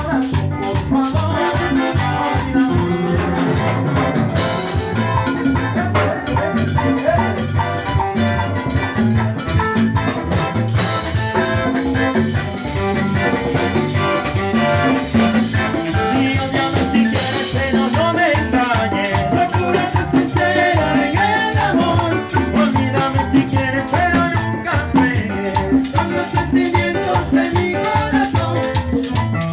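A live Latin dance orchestra playing salsa-style music, with a steady beat driven by drums and maracas.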